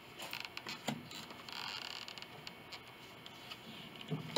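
Metal clicks and a short scraping grind as locking pliers grip and turn a bolt on a grand piano's plate. A sharp knock comes near the end.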